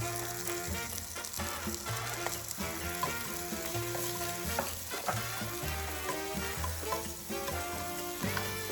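Chopped onions sizzling as they fry in hot olive oil in a pan, a steady hiss, under background music with a moving bass line.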